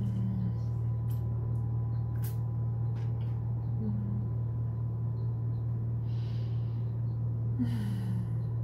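Steady low electrical-type hum of the room, with soft mouth sounds of a person eating over it: a few brief hummed "mm"s (the last one falling in pitch), small lip clicks and breaths.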